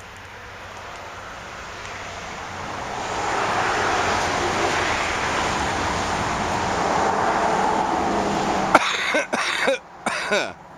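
A vehicle passing on the road, its noise swelling for several seconds. In the last two seconds a man coughs about four times, as after smoking a joint.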